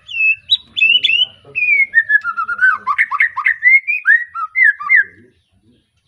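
White-rumped shama, a young bird just out of its spotted juvenile plumage, singing loud, clear whistled phrases that slide downward in pitch, then a quick run of short, varied notes, stopping about five seconds in.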